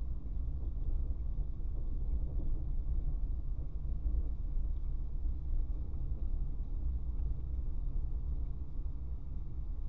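A car driving, heard from a dashcam inside the cabin: a steady low rumble of engine and tyre noise on a paved road.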